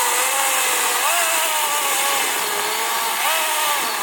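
ReliaRoads 40-volt battery chainsaw running under load while cutting through oak. Its electric motor whine and chain hiss sag in pitch and recover several times as the chain bites into the wood.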